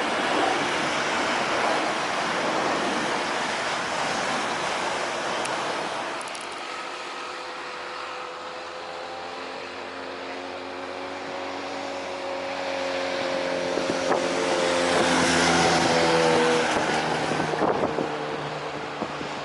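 Jet airliner engines passing: a loud rush of jet noise that fades, then the whine of another jet's engines building up and growing louder before dropping away suddenly near the end.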